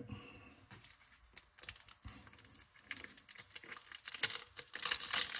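Pokémon trading cards and their plastic and foil packaging being handled: scattered light clicks and taps, turning into busier crinkling from about four seconds in.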